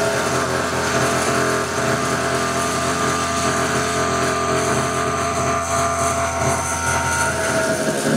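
Small single-cylinder petrol engine of an LT50 kids' quad running at a steady idle, warm, while the carburettor idle screw is being set.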